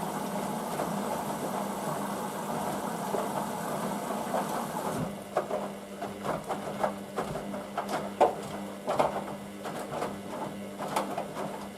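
Hoover VisionDynamic washing machine topping up with water in its main wash: a steady rush of inflowing water with a low hum, which cuts off suddenly about five seconds in. Irregular light clicks and knocks from the machine follow.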